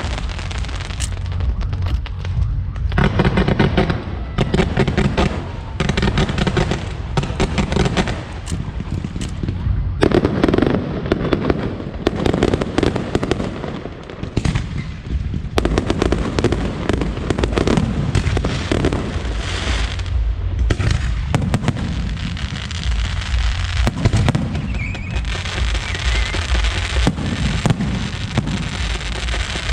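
Aerial fireworks bursting one after another, with dense stretches of crackling between the bangs.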